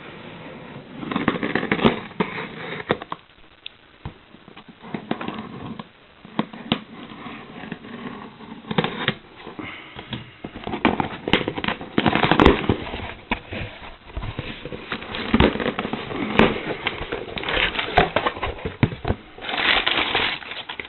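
A cardboard shipping box and its packaging being opened and handled by hand after the tape has been cut: irregular rustling, scraping and crackling in bursts, with many sharp clicks and knocks.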